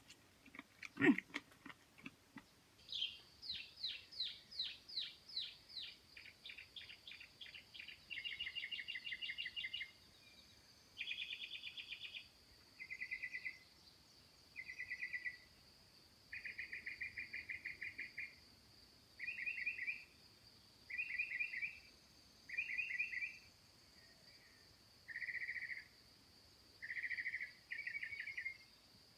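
Woodland chorus: a steady high-pitched insect drone, over which a run of quick falling chirps gives way to short trilled calls repeated every one and a half to two seconds. A thump about a second in is the loudest sound.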